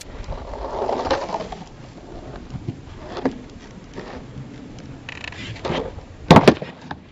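Skateboard rolling on asphalt with scattered small knocks, then a half cab flip: a crack of the tail popping and, a moment later, two loud smacks as the board lands.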